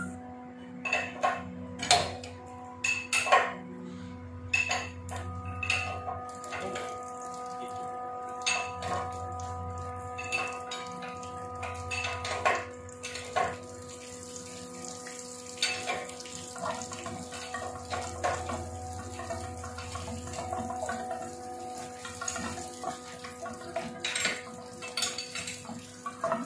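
Irregular metal clinks and clanks as a valve and its flange bolts are handled and fitted between steel pipe flanges, over a steady multi-tone hum.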